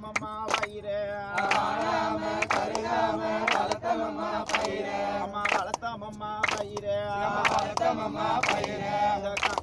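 A group of voices singing a chant-like song together, with sharp short beats about once or twice a second.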